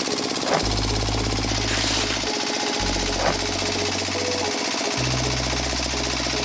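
Small electric motors of a DIY miniature tractor and bulldozer running with a fast, rattling buzz, over low steady tones that change every second or two.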